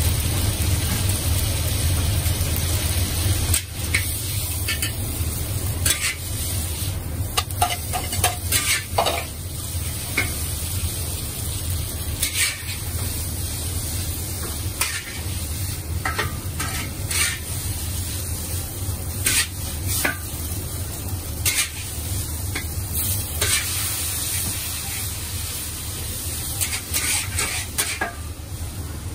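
Noodles sizzling as they are stir-fried in a wok, with frequent irregular scrapes and clinks of the metal spatula against the wok over a steady low rumble.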